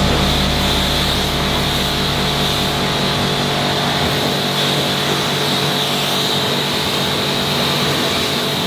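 Pressure washer running continuously: the pump's steady drone under the hiss of the high-pressure water jet striking a car's bodywork.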